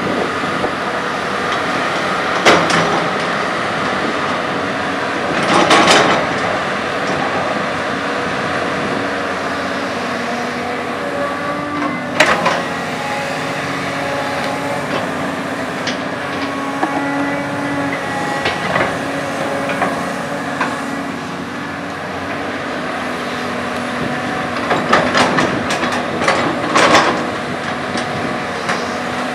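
CAT 320D hydraulic excavator working: its six-cylinder diesel engine runs steadily under load, with tones that shift in pitch as the boom and bucket move. The bucket knocks and scrapes against soil and rock a few times, most of all in a cluster of knocks near the end.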